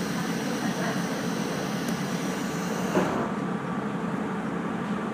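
Steady hum of a train's onboard machinery and ventilation with the train standing at a station, with a single knock about three seconds in.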